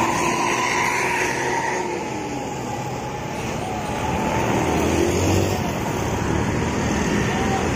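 Scania K360 coach's diesel engine running close by, mixed with steady road-traffic noise. The engine noise swells about five seconds in.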